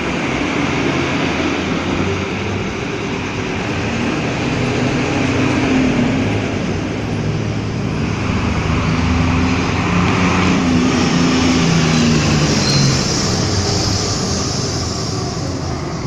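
Road traffic with heavy vehicles passing: steady road and tyre noise with engine notes that shift and drop in pitch as they go by.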